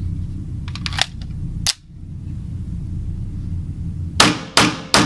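Three quick pistol shots near the end, about 0.4 s apart, from a 9mm EAA Witness long-slide, single-action match pistol, over a steady low rumble.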